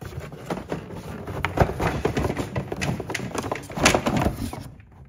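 Cardboard box being handled and rummaged through: rustling and scraping with a run of knocks and thumps, the loudest about four seconds in.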